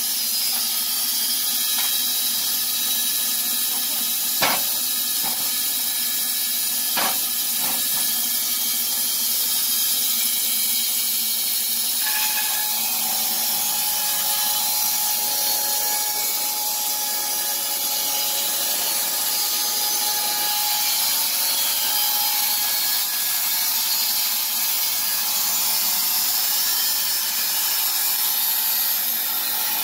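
Wood-Mizer LT15 band sawmill running on its electric motor, the band blade sawing lengthwise through a squared timber with a steady hiss. There are two sharp knocks in the first eight seconds, and a steady whine joins about twelve seconds in.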